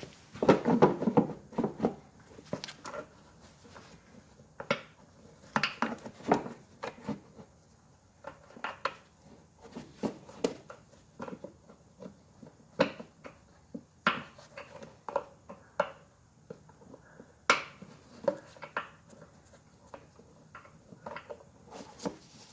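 Irregular clinks, clanks and knocks of hand tools and metal parts being handled, with a quick run of knocks about a second in.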